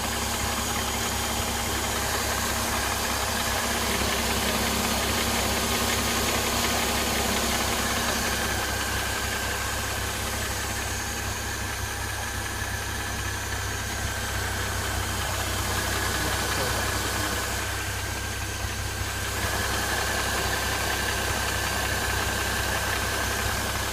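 Mercedes-Benz M272 V6 engine idling warm, with the metallic rustling clatter that sets in once it has warmed up; it seems to come from the left side and sounds a little like a diesel.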